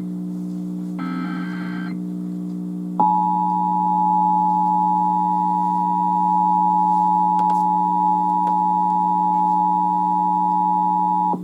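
Emergency Alert System test received over AM radio: one short burst of SAME digital header data about a second in, then about three seconds in the two-tone EAS attention signal (853 and 960 Hz together) starts and holds steady for about eight seconds before cutting off abruptly. A steady low hum runs underneath.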